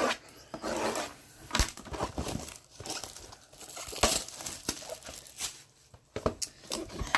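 Crinkling and rustling of trading card pack wrappers and cards being handled, with a few sharp clicks and knocks.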